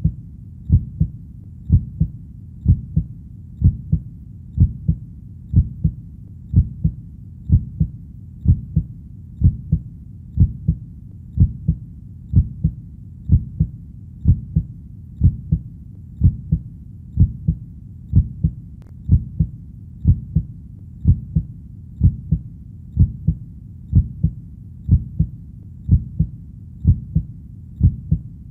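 Heartbeat, a steady lub-dub double thump repeating about once a second, low and deep.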